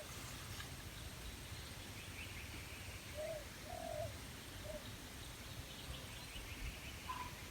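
A dove cooing softly: a short phrase of three low notes about three seconds in, over faint high chirping.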